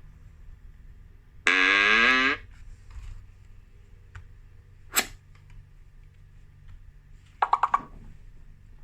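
Cartoon sound effects: a loud buzzing tone held for just under a second, a single sharp click near the middle, then a rapid run of short beeps near the end.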